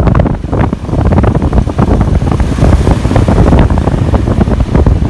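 Wind buffeting the microphone of a camera on a moving motorcycle: a loud, gusty low rumble, with the motorcycle and road noise underneath.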